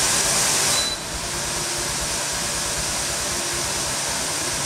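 Klarstein RGL60WH kitchen range hood fan running at full power with a steady rush of air; about a second in a short high beep sounds and the fan steps down to a lower speed, the air noise quieter and less hissy.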